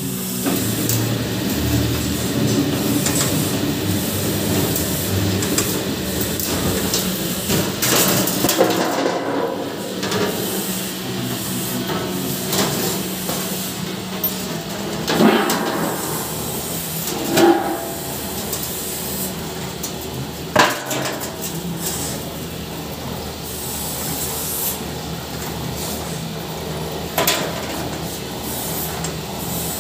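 Barrel drum cutting machine running with a steel oil drum turning against its cutter, cutting the end off the drum: continuous steel-on-steel scraping with a steady motor hum in the first half. Several sharp metallic knocks come in the second half.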